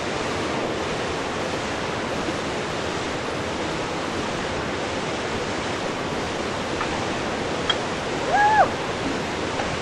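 Steady rushing of a waterfall and river water, an even, unbroken noise, with a short call that rises and falls near the end.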